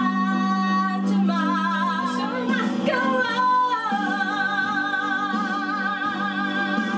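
A woman singing, gliding between notes and then holding long notes with vibrato from about halfway through, over recorded instrumental music.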